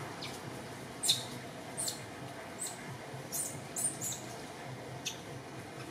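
Baby long-tailed macaque giving short, sharp, high-pitched squeaks, about nine in six seconds, the loudest about a second in: the distress cries of an infant left alone without its mother.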